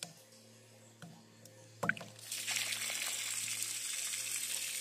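A sharp clack as a PVC ball valve on a plastic water storage tank is opened. About two seconds in, water starts gushing steadily out of the tank's outlet and splashing onto the ground.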